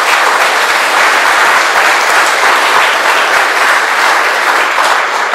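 Audience applauding steadily: dense, even clapping.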